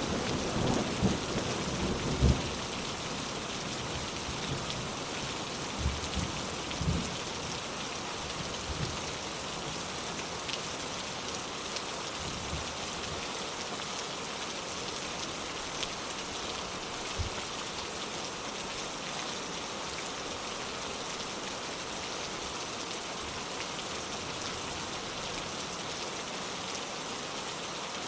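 Steady heavy rain falling, with the tail of a thunder rumble dying away over the first couple of seconds and a few faint low rumbles of thunder around six to seven seconds in.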